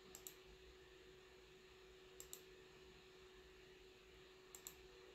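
Computer mouse clicking: three quick double clicks, about two seconds apart, over a faint steady hum.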